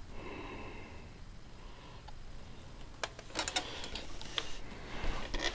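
Scattered light clicks and knocks of handling, starting about three seconds in after a quiet opening; no vacuum motor is running.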